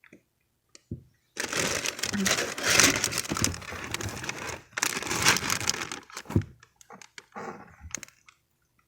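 Food packaging crinkling and rustling as produce is handled, in two long stretches after a short quiet start.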